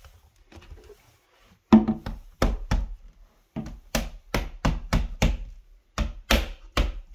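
Regular steel hammer tapping a UPVC window glazing bead back into the frame: a run of sharp knocks, about three a second, starting under two seconds in, with a short pause around three seconds.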